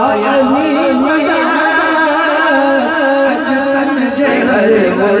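Men singing a Sufi devotional kalam into microphones, in long drawn-out melodic phrases amplified through a PA system.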